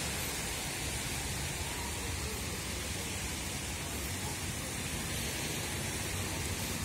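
Wind blowing over the microphone: a steady rushing hiss with an uneven low rumble of buffeting underneath.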